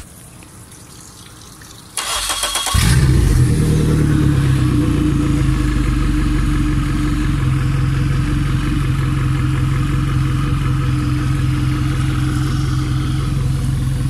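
2012 Suzuki 150 four-stroke outboard motor turned over by its electric starter about two seconds in, catching after under a second of cranking and settling into a steady idle.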